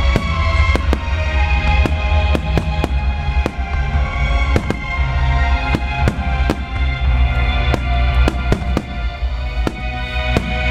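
Fireworks shells bursting in quick, irregular succession, many sharp bangs, over music with a heavy bass line. This is a creative fireworks display set to music.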